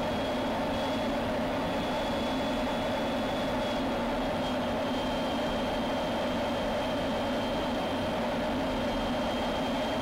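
Steady jet aircraft noise in flight: a constant rushing drone of engine and airflow, with a thin, steady high whine above it.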